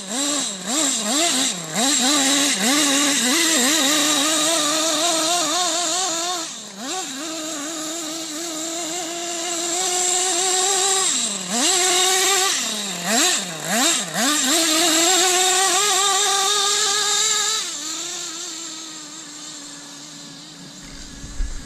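Brushless electric motors of a radio-controlled model whining, the pitch swooping up and down with quick throttle changes, then holding steadier with several sharp dips, and fading near the end.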